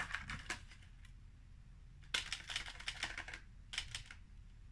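Plastic blister packs and a small cardboard box being handled, giving quick crinkling clicks in three short bunches: one at the start, a longer one from about two seconds in, and a brief one near the end.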